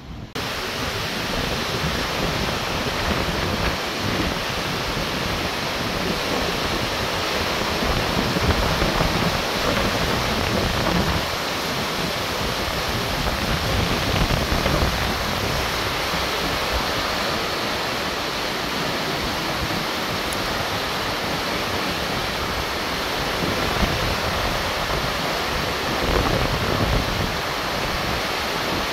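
Muddy floodwater of the Ouergha river in spate, rushing and churning around bridge piers: a steady loud rush of water that cuts in abruptly just after the start.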